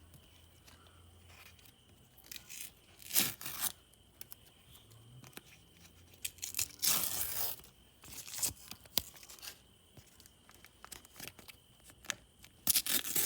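A handmade paper blind bag being torn open by hand: a few sharp paper rips, the longest about seven seconds in, with paper crinkling and small rustles between them.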